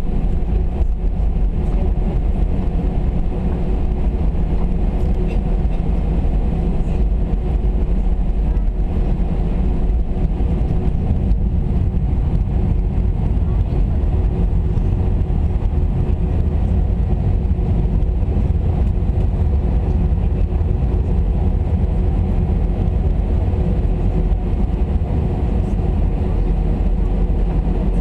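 Steady cabin drone inside an Airbus A319: low rumble of the jet engines and airframe with a constant hum on top, holding level throughout.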